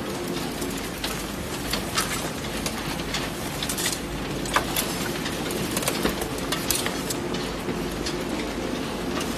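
Belt conveyor and recycling-plant machinery running, carrying loose scrap cardboard, paper and plastic packaging: a steady hum with scattered irregular clicks and rattles, the sharpest about halfway through.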